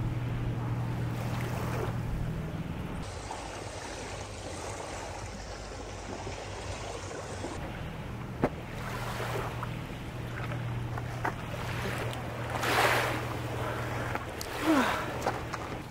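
A steady low motor hum runs under a background of open-air noise. Twice near the end, water splashes loudly as a person swims in a lake.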